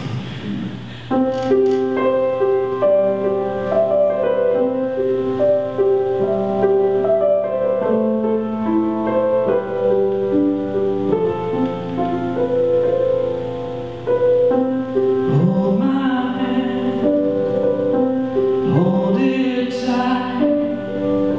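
Piano playing an introduction of held notes and chords, then a man begins singing over it about fifteen seconds in.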